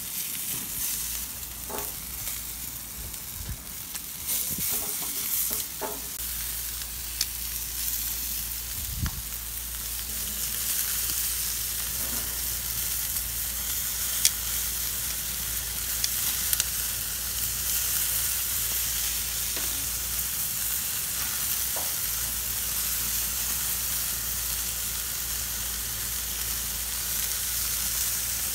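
Longganisa pork sausages sizzling steadily on a barbecue grill grate, with scattered sharp clicks as tongs turn them.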